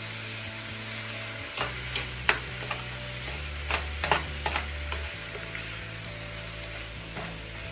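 Sliced pork belly, red onion and garlic sizzling in a nonstick frying pan while being stirred. The utensils scrape and click against the pan several times between about one and a half and five seconds in.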